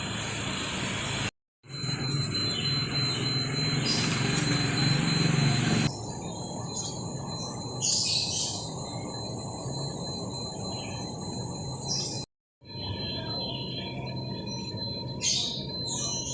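Steady rumbling background noise, louder for a few seconds early on, with a few short bird chirps; the sound cuts out completely twice for a moment.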